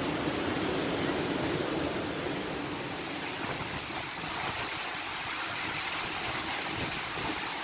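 Waterfall water rushing in a steady, even noise.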